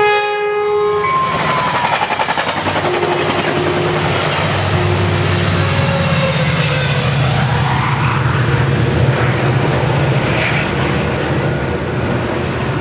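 Caltrain diesel push-pull commuter train passing at speed without stopping. The horn sounds for about the first second and drops in pitch as it goes by. Then the cars rush past, with a heavier low rumble as the diesel locomotive pushing at the rear passes, a few seconds in.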